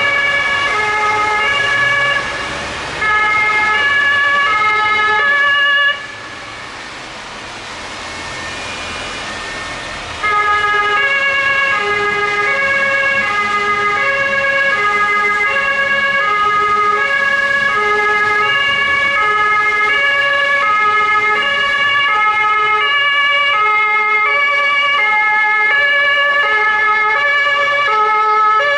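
Several German police two-tone sirens (Martinshorn) sounding at once, each switching between a high and a low note, out of step with one another. They break off for about four seconds around six seconds in, leaving a steady rushing noise of traffic on the wet road, then start again.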